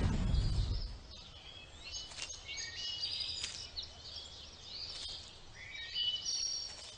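A rushing whoosh fades out within the first second. Then birds chirp and give short whistled calls, some of them sliding in pitch, over a faint low background.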